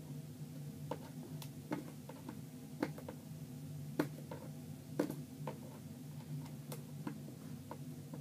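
Irregular clicks and taps of fingers picking and prying at a headset's cardboard box to get it open, with the strongest pair about halfway through. A steady low hum runs underneath.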